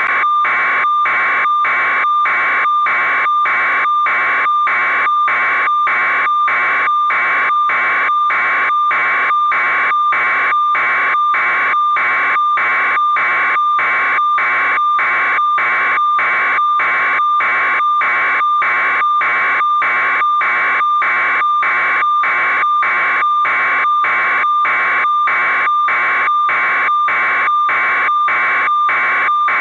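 A steady electronic buzzing tone, pulsing evenly about twice a second without change.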